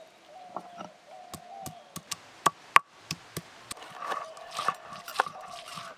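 Irregular sharp knocks of a knife striking a wooden cutting board as a lemon is cut, roughly two a second. A faint wavering animal call sounds in the background.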